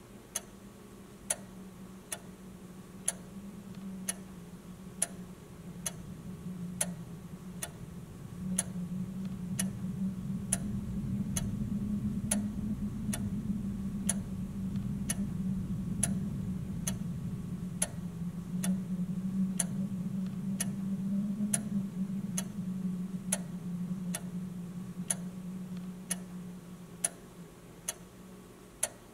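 A clock ticking steadily, a little under once a second, over a low hum that swells in a few seconds in, is loudest through the middle and fades away near the end.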